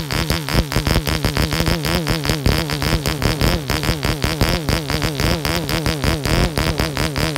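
OTM Stryz 1.5 cc single-cylinder model diesel engine running steadily on a test stand, driving a propeller, its note wavering slightly up and down. It is set very rich and under-compressed, as for running in a new engine with a cast-iron piston.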